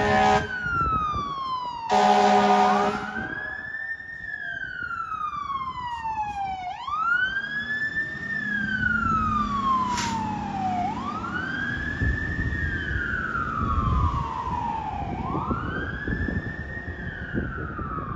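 Fire engine siren wailing, rising quickly and falling slowly about every four seconds. A short air horn blast sounds about two seconds in.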